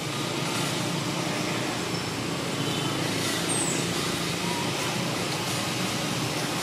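Steady rushing outdoor background noise, with a single short high falling chirp about three and a half seconds in.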